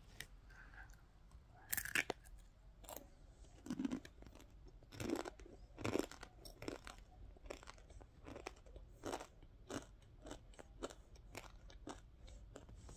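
A person biting and chewing crunchy food: irregular crunches at an uneven pace, the loudest about two seconds in and again around five to six seconds in.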